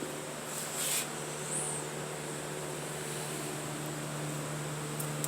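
Steady low hum with hiss, and a brief scuff about a second in.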